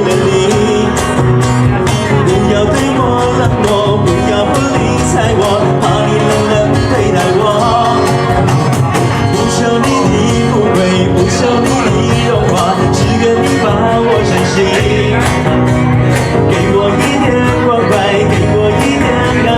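Live band playing an instrumental interlude of a Mandarin pop ballad, with guitar over a steady beat.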